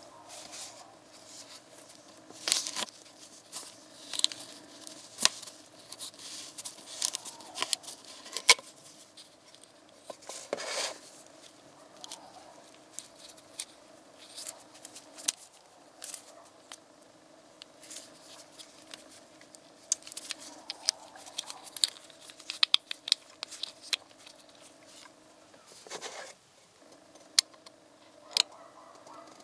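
Close, sharp clicks and crackles of a plastic motor-oil bottle cap being twisted off and its seal liner peeled and torn away, with gloved fingers rubbing on the plastic. A faint steady hum runs underneath.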